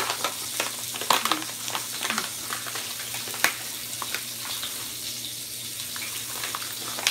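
Sausage links sizzling steadily in a skillet, with scattered clicks and scrapes of a utensil stirring a pot of grits.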